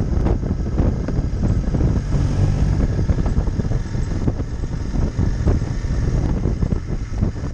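Wind buffeting the microphone on a moving motorcycle, over the low rumble of the motorcycle's engine as it cruises.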